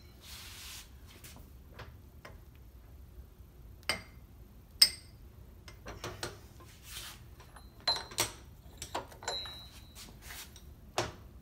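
Scattered metallic clinks and knocks of a large steel twist drill bit and tools being handled on a steel plate in a drill press vise, a few with a short ringing tone, the sharpest about five seconds in.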